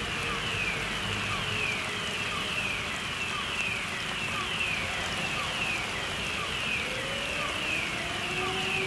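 Plant fire-alarm sounder repeating a high falling sweep tone, about one and a half sweeps a second. Behind it a motor-driven fire siren is sounding, and it winds up in pitch near the end.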